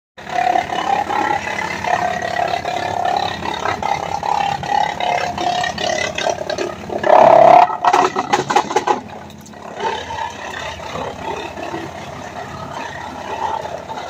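Tractor-driven WM810 wood chipper running and chipping branches: a steady machine drone with clattering as the wood goes through. The loudest burst comes about seven seconds in as a branch is fed in, and after about nine seconds it settles to a lighter running sound.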